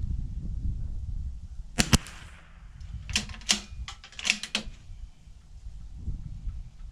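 A single shot from a Bergara B14R bolt-action .22 rimfire rifle, a sharp doubled crack about two seconds in. About a second later comes a quick series of metallic clicks as the bolt is worked to eject the case and chamber the next round.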